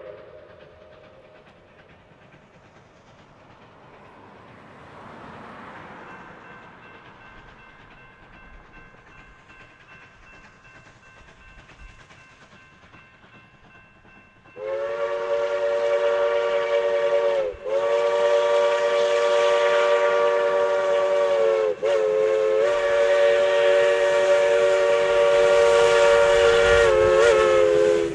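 Multi-tone chime whistle of a narrow-gauge steam locomotive. It stays quiet for the first half, then about halfway through it is blown loud in long blasts with two brief breaks, the last blast held for about six seconds.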